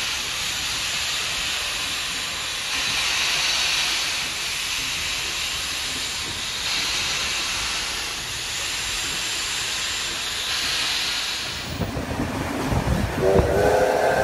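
NSW C38-class Pacific steam locomotive 3801 starting away, steam hissing steadily from its open cylinder drain cocks and swelling every few seconds. Near the end, another steam locomotive passes with a heavy rumble and its steam whistle sounding.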